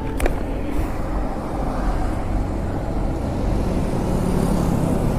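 Roadside traffic noise: passing vehicles and running engines as a steady rumble, with a couple of sharp clicks at the very start.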